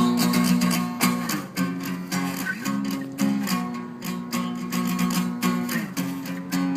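Guitar strummed in a steady rhythm, chords ringing between the strokes.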